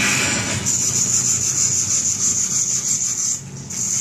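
Television soundtrack heard through the TV's speaker: a steady hiss with a low hum under it, dipping briefly near the end.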